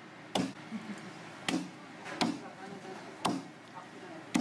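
A large knife chopping monkfish into pieces on a thick wooden chopping block: five sharp strikes, about a second apart.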